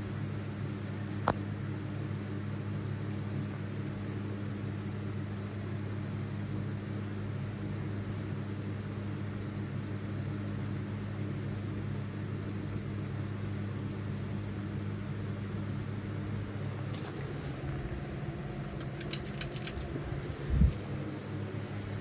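Harbor Breeze Breezeway ceiling fan running with a steady motor hum. A single sharp click comes about a second in, and near the end a brief rattle of quick clicks is followed by a dull thump.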